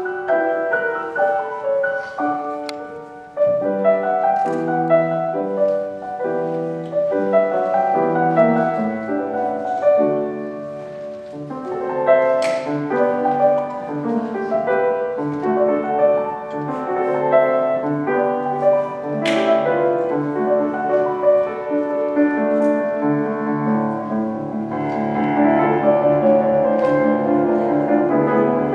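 Steinway concert grand piano played solo, a steady run of notes and chords that grows fuller and louder over the last few seconds.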